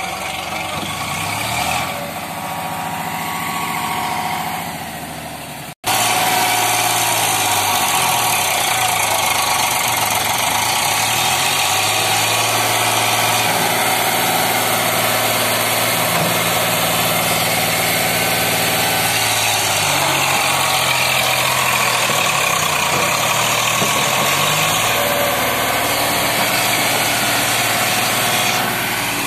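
Eicher tractor's diesel engine running, its pitch rising and falling several times as it is revved and eased back. About six seconds in the sound cuts out for an instant and returns louder.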